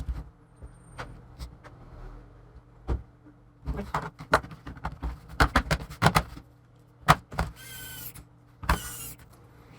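Scattered clicks and knocks of small parts being handled against a hard plastic laptop case, then two short whirs of a small electric motor near the end, a little under a second apart.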